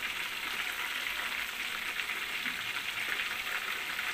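Paprika-coated chicken pieces deep-frying in hot oil in a pan: a steady, crackling sizzle.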